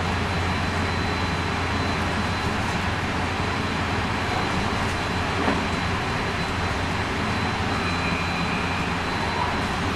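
Running sound inside a JR West 223 series 2000-subseries electric multiple unit motor car: a steady rumble of wheels and traction gear with a low hum and a faint high steady tone. There is a single brief knock about five and a half seconds in.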